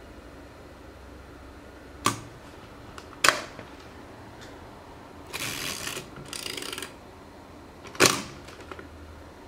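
Zenit 122 35mm SLR shutter mechanism: a sharp click about two seconds in, a louder clack a second later, then the film advance lever wound with a ratcheting rasp in two parts, and near the end a loud clack of the shutter firing open on bulb. The camera has a fault in which the mirror does not stay raised during bulb exposures.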